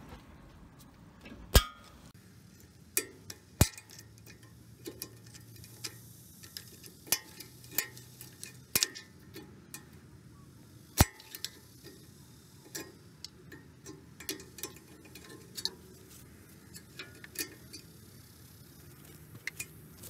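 Irregular sharp metallic clicks and clinks of a steel screwdriver and snap ring pliers prying a snap ring out of its groove on a lower ball joint.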